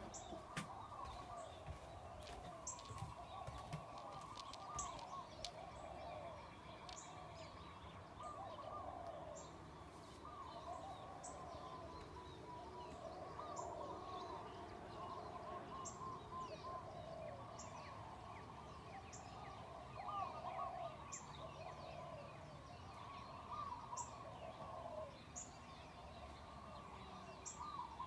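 Chorus of many animals calling at once, their overlapping calls running on without a break, with a short sharp high chirp repeating every one to two seconds.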